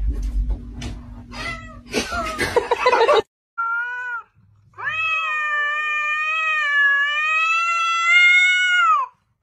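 A cat yowling at another cat in a standoff: a short call, then one long drawn-out yowl of about four seconds that wavers in pitch. Before it come a few clicks and rustling noises.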